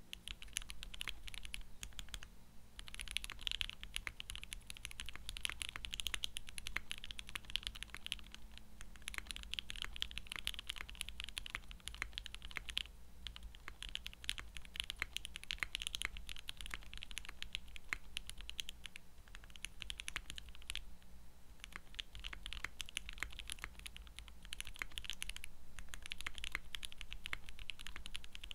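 Fast, continuous typing on a TKC Portico mechanical keyboard fitted with silicone case dampening, lubed and filmed EverGlide Water King linear switches and ePBT PBT keycaps. The keystrokes run in a dense stream, broken by three short pauses.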